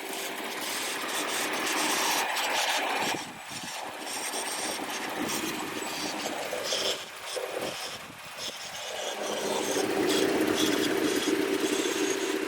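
Ford 3.5L EcoBoost V6 idling with a steady whizzing whistle over a hiss, the note swelling louder twice. The noise comes from a bad PCV valve.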